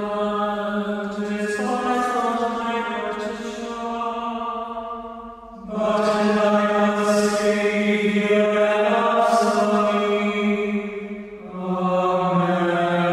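Slow devotional chanting: long held sung notes in phrases of about five to six seconds. There is a short break about five and a half seconds in and another near the end before each new phrase.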